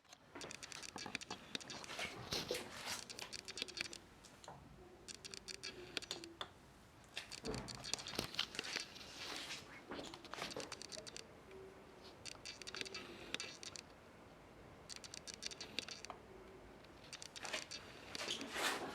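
Rustling and scratching handling noise in irregular bursts, with many small clicks.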